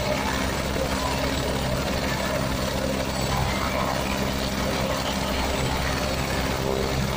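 Turbine-powered light helicopter running on the ground with its main rotor turning, giving a steady, unbroken engine and rotor noise.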